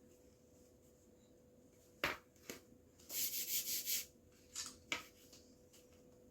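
A sharp click, then a short rubbing, scraping noise lasting about a second, followed by a few light clicks, over a faint steady hum.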